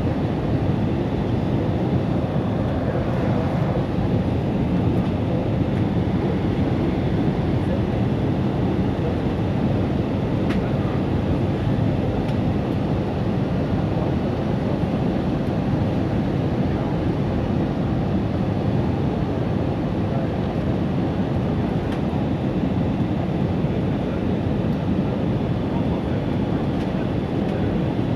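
Steady low rumble of an Airbus A320 in flight, engine and airflow noise holding level with no change.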